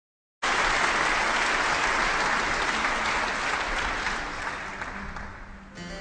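Audience applauding, cutting in suddenly and fading out gradually over several seconds; music begins near the end.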